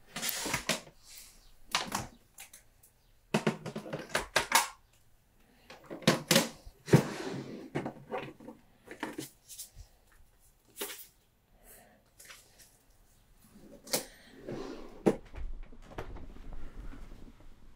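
Small objects being handled and rummaged through in a desk drawer: an irregular run of clatters, knocks and rustles, with softer rustling near the end.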